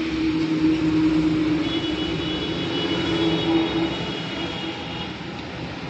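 A motor droning steadily. It grows louder over the first second, eases off after about four seconds, and has a thin high whine over it in the middle.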